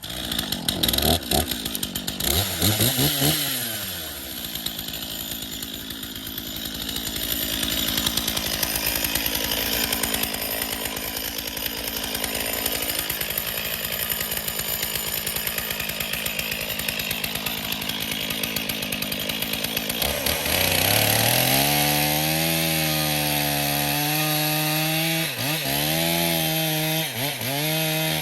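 Stihl chainsaw revving up, then running under load for a long stretch as it cuts the front (face) cut into a cedar trunk. Near the end the engine runs at high revs, dropping and picking back up a few times as the throttle is eased and reapplied.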